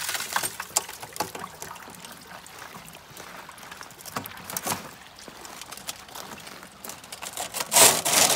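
Metal sluice box handled against a plastic bucket while its concentrates are dumped: scattered light knocks and scrapes, then a short loud rush near the end as water and material wash off the upright sluice into the bucket.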